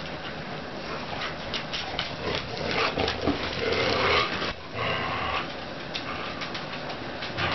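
Two dogs, a border collie and a large black dog, playing tug-of-war over a toy, with scuffling and dog vocal noises that are loudest a few seconds in.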